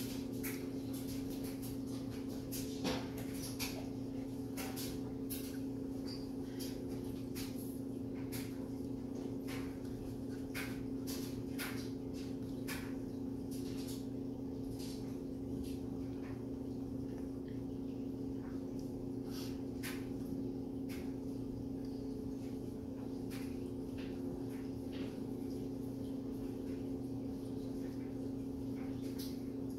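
A steady electrical hum of several fixed tones, with many scattered short clicks and soft taps at irregular intervals.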